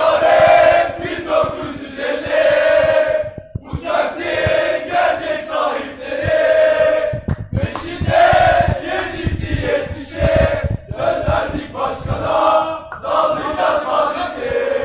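A group of young male football supporters chanting a song together in unison, in phrases with short breaks between lines, clapping along.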